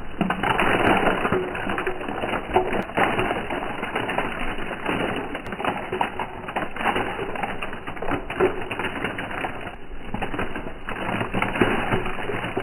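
Crisp fried potato chips falling into a ceramic bowl, a steady dense crackle and clatter of many thin slices landing on the bowl and on each other.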